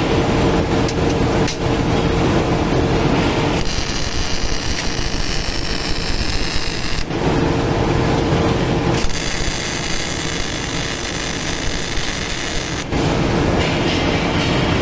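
Electric arc welding on thin, light-gauge steel: the arc crackles and sizzles continuously, changing in tone every few seconds.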